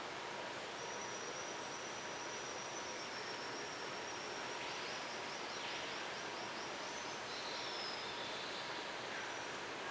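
High, thin bird calls over a steady hiss: a long held whistle, a quick trill about halfway through, and a shorter, lower call near the end.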